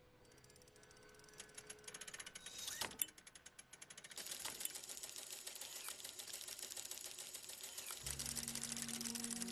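Clockwork gears of an automaton ticking and clicking rapidly. The clicks grow denser and louder, with one sharp click about three seconds in, then settle into a continuous mechanical clatter. A low held tone comes in near the end.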